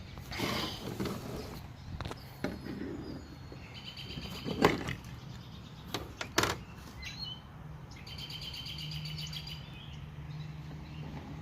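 Birds chirping in rapid repeated trills, with a few sharp handling knocks and clicks, the loudest about halfway through, and a low steady hum in the second half.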